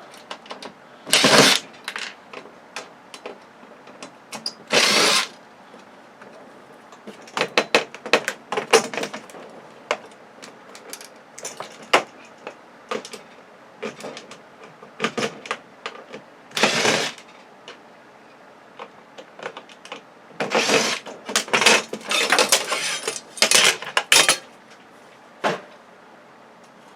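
Power drill-driver backing out screws in a string of short runs, with clicks and clatter of screws and metal parts being handled in between.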